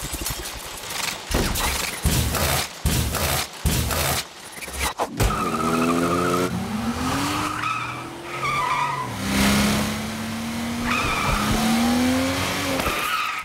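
Heavy machinery clanking and knocking, then a truck engine revving up in rising pulls, twice, with a high wavering squeal over it.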